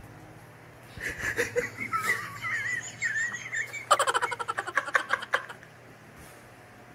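Stifled, high-pitched giggling, then a quick run of rapid giggles about four seconds in, over a steady low hum.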